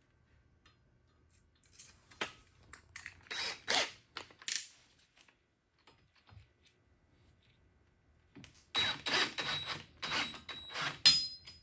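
Metal tools clinking and rattling against metal in two irregular bursts, the second and louder one in the last third.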